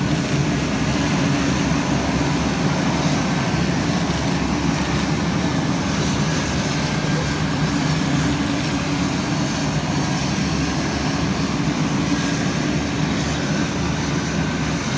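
Propeller trainer aircraft engines running steadily on the apron, a constant drone with no change in pitch.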